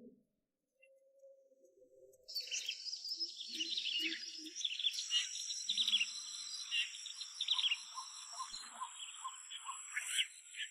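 Outdoor ambience that starts suddenly about two seconds in after near silence: many short bird chirps over a steady, high-pitched insect drone.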